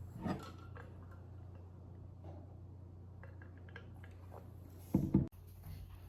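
Household handling noises over a steady low hum: a soft knock at the start, a few light clicks, then a louder double thump about five seconds in that cuts off suddenly.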